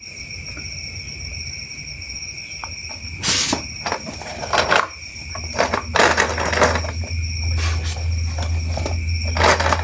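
Plastic toy parts and packaging handled: irregular clicks and rustles, over a steady high-pitched whine and a low hum that grows louder after about six seconds.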